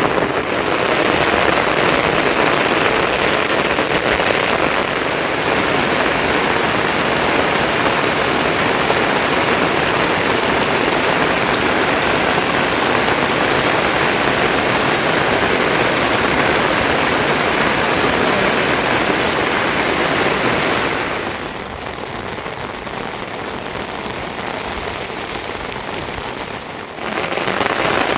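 Steady, dense patter of rain falling on a surface, dropping to a quieter level for about six seconds near the end before coming back suddenly.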